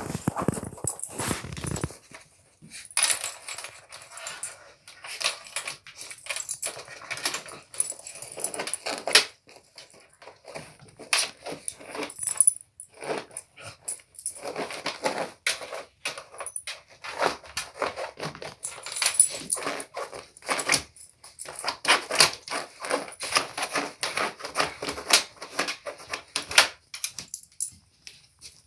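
Two dogs digging in a fabric-lined plastic dig toy: irregular bursts of scratching and rustling as paws and claws rake the fabric and plastic tray, with short pauses between bouts.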